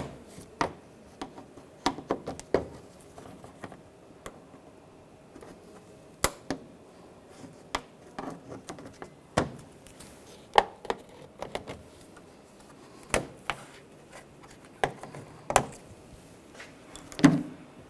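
Plastic push-pin retainers being pried out of a plastic radiator cover with a trim tool: a string of irregular sharp clicks and snaps, the loudest near the end.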